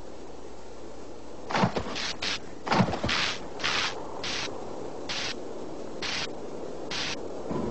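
Cartoon sound effects: two knocks with a dropping low tone, for round figures popping up out of the snow, then about six short hissing swishes.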